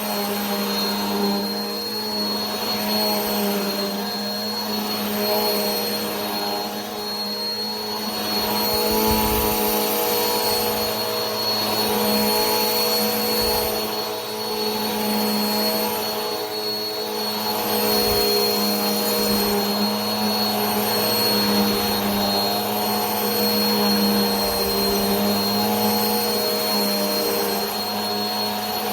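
Vacuum cleaner running continuously: a steady rushing of air with a low motor hum and a thin high whine, the level swelling and easing gently every few seconds.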